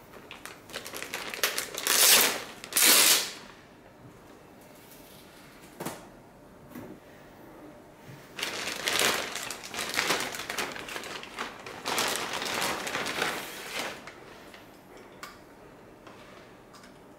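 Clear plastic bag crinkling and rustling as it is pulled off a car head unit, in two spells: from about half a second to three seconds in, the loudest part, then again from about eight to fourteen seconds. A single click comes between them.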